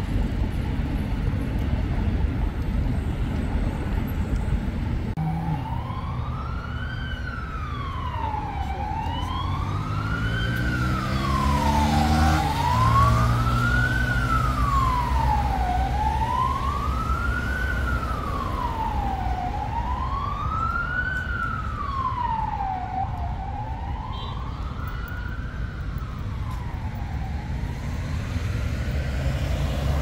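Emergency vehicle siren wailing, rising and falling slowly about six times, once every three and a half to four seconds. It starts about five seconds in and stops near the end, over a steady low rumble of city traffic.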